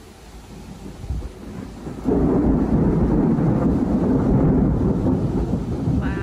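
Thunder: a low rumble, then a sudden loud roll about two seconds in that goes on for about four seconds before easing.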